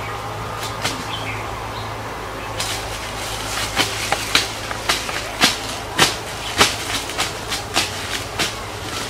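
Knife hacking through woody vine stems in undergrowth. It makes a run of sharp, irregular chops and snaps, two or three a second, starting a few seconds in.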